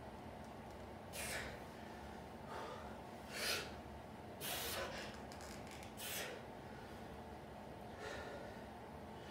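A man's short, forceful breaths, about six sharp gasps and exhalations a second or two apart, the loudest about three and a half seconds in. This is the hard breathing of exertion while he strains to bend a 7/16-inch cold-rolled steel bar by hand.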